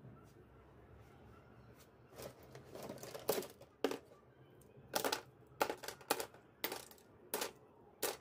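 A run of about ten sharp clacks and knocks at uneven spacing, starting about two seconds in: hard household objects being handled and set down.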